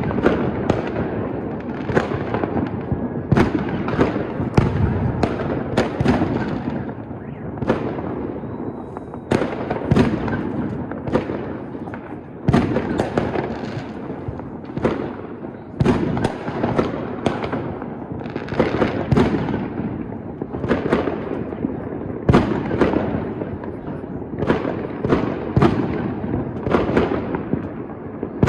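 New Year's fireworks display: shells bursting in an irregular, unbroken run of sharp bangs, about one or two a second.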